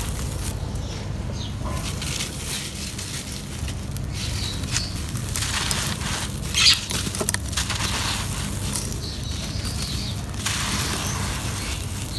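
Dry, gritty sand blocks crushed and crumbled by hand, with loose sand pouring and trickling in rustling bursts. There is one sharper, louder crunch about six and a half seconds in, over a steady low rumble.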